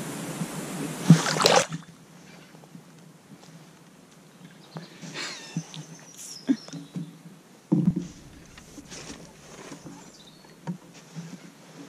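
A hooked carp splashing in the shallows as it is played in and landed at the bank, with scattered knocks and sloshes. A loud rushing hiss in the first couple of seconds stops suddenly.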